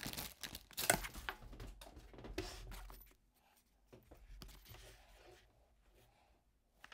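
Handling noise from fitting parts onto a machine: a few light clicks and knocks, the sharpest about a second in, then faint rustling and small taps.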